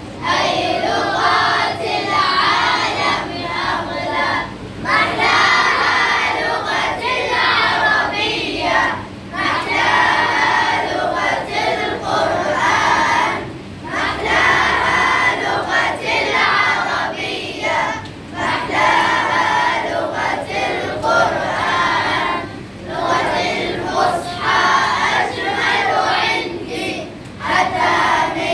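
A group of schoolchildren singing together in Arabic, chant-like, in phrases broken by short pauses every four to five seconds.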